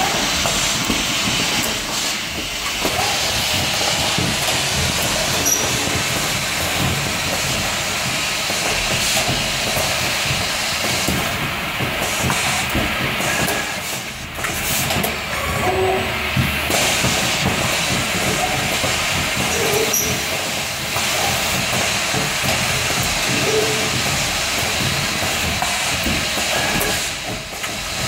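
Automated cooling-plate sorting machinery running: a steady hiss of compressed air from its pneumatic grippers and vacuum nozzles, with scattered light clicks of the moving parts.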